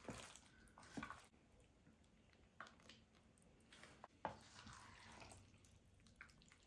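Faint wet squishing of a wooden spoon stirring a thick, gravy-coated chicken and vegetable mixture in a glass baking dish, with a few soft knocks of the spoon, about a second in and again a little after four seconds.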